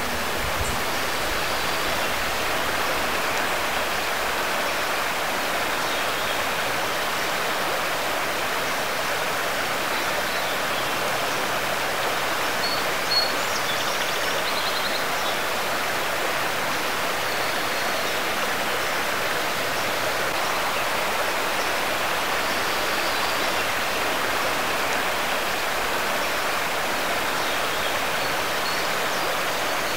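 Shallow stream water flowing over stones: a steady, even rushing and babbling.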